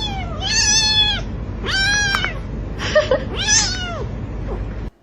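A cat meowing again and again, about five loud, drawn-out meows each under a second long, over a steady low background rumble that cuts off suddenly near the end.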